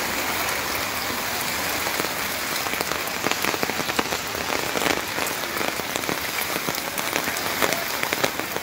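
Steady heavy rain, with many separate raindrops striking close to the microphone as sharp ticks.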